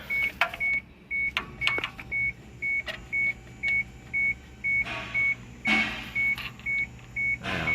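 An electronic beep repeating about twice a second, with metal clinks and a few short scrapes from a spark plug socket and wrench as a spark plug is worked loose and drawn out of the engine.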